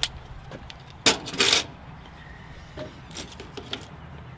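Brief handling noises while seasoning ground beef in cast-iron skillets: a click at the start, a short scraping rattle about a second in, and a few light clicks around three seconds, over a faint steady hiss.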